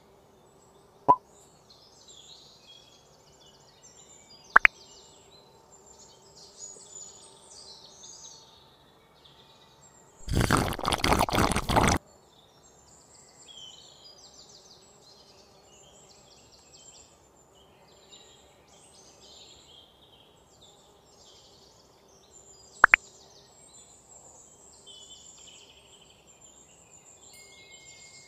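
Three sharp single clicks as small metal and wooden parts of a miniature slingshot gun are handled, and a loud rough scraping noise lasting about two seconds some ten seconds in. Faint birds chirp in the background.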